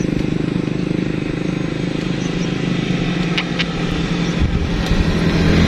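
A motor vehicle engine running steadily with a low hum that grows a little louder near the end, with a couple of faint clicks about three and a half seconds in.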